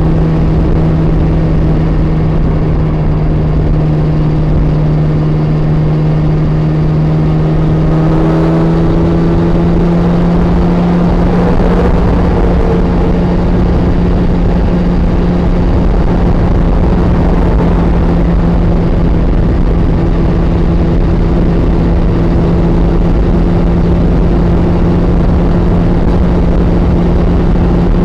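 Yamaha FZ1 motorcycle's inline-four engine running at steady highway cruise, its drone rising slightly about a third of the way in and then holding, under a constant rush of wind and road noise. It is muffled, heard through layers of jackets from a phone in the rider's vest pocket.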